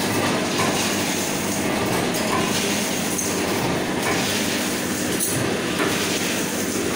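Vertical form-fill-seal pouch packing machine running, a steady mechanical clatter as it fills, seals and cuts printed snack packets.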